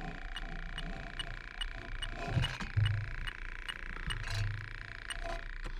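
Electronic refrigerant leak detector ticking evenly, about two and a half times a second, over a steady high hum, with a few short low hums partway through. It is sniffing refrigerant at the heat pump coil, the sign of a small leak in the coil.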